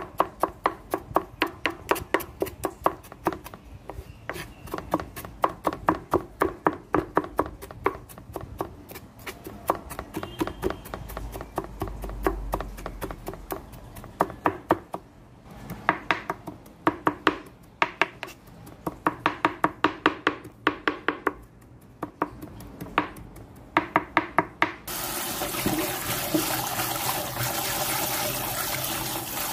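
Kitchen knife chopping quickly on a cutting board, about three or four strokes a second, in runs with short pauses. Near the end a tap is turned on and water runs steadily into a bowl of French beans being washed by hand.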